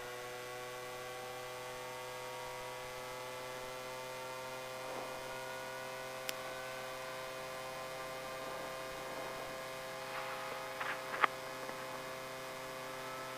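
Turboshaft engine of an AS350 B2 helicopter running just after start-up, heard as a steady hum of several tones, a few of them creeping slowly upward in pitch over the first several seconds. A few short clicks come about six seconds in and again around ten to eleven seconds in.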